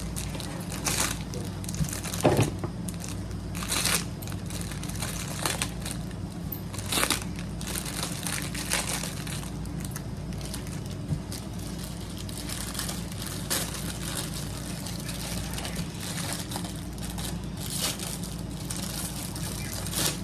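Plastic packaging crinkling and rustling in short irregular bursts as items are handled and unwrapped, the loudest about two seconds in, over a steady low background hum.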